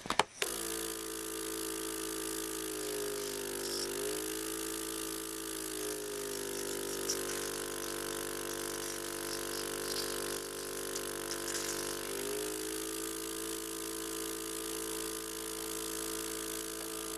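Airway suction machine's pump motor running with a steady hum while the child's airway is suctioned. It switches on abruptly at the start, and its pitch wavers briefly about three seconds in and again near twelve seconds.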